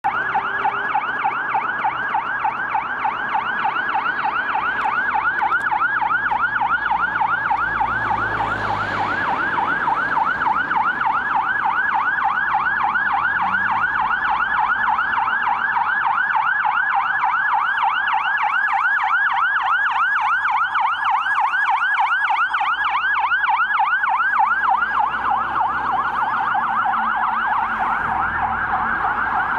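Fire engine siren on a Scania P380 tender, sounding a fast yelp that sweeps up and down several times a second, as the truck approaches and passes through traffic.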